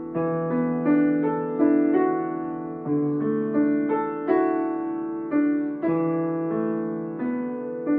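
Grand piano played at a slow, even pace: single notes and chords in the middle and lower range, each struck and left to ring and fade before the next, about one to two a second.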